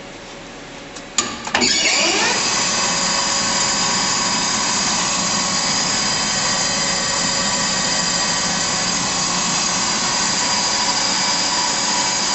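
Bridgeport Romi EZ-Path CNC lathe spindle starting with a click about a second in, spinning up quickly, then running steadily at its highest speed with a steady gear whine; the owner judges all the headstock gears good.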